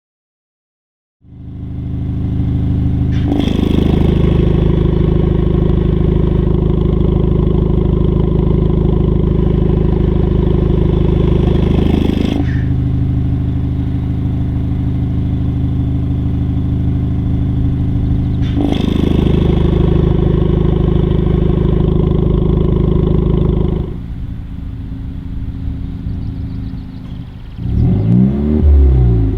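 Honda Civic Type R FK2's 2.0-litre turbocharged four-cylinder idling through a Supersprint exhaust, the tone stepping abruptly between quieter and fuller and louder several times at unchanged revs as the exhaust valve is opened and closed. Near the end a few quick blips of the throttle.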